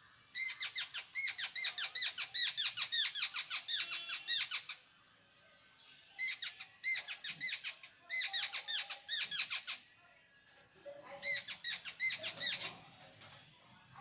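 Jungle babbler chattering: three bouts of rapid repeated notes, several a second, separated by short pauses.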